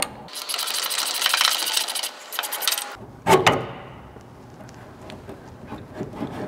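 Hand ratchet wrench clicking rapidly as the transmission mount's lower nut is spun off. A sharp metal clank comes about three seconds in, followed by lighter clinks of tool handling.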